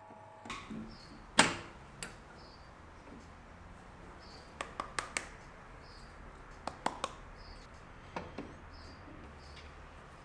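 Hard clicks and knocks of a wooden turning blank being handled at a stopped wood lathe's chuck, the strongest one about a second and a half in and the rest in small clusters, over a low steady hum.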